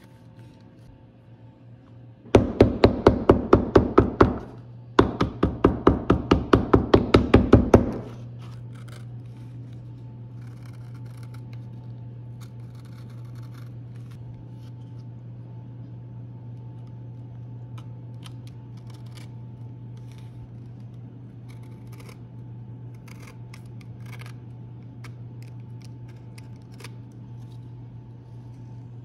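Two runs of rapid, loud sharp clicks, about six a second, from a hand tool at the leather bench, followed by faint scattered ticks over a steady low hum as a snap-off utility knife trims the glued sheath edge.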